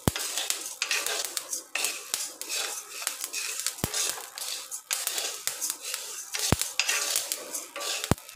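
Coarse rock salt being stirred in a hot dry pan with a wooden spatula, the crystals rasping and scraping against the pan in sweeping strokes, with a few sharp clicks. The salt has started to crackle as it dry-roasts.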